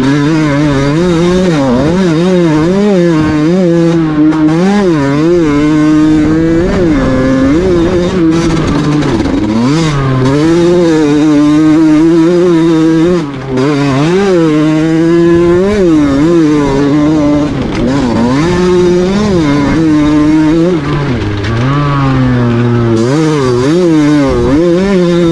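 50cc two-stroke KTM motorcycle engine breathing through a Valenti trofeo exhaust, running loud and being revved up and down over and over, its pitch rising and falling roughly once a second. About thirteen seconds in there is a brief drop.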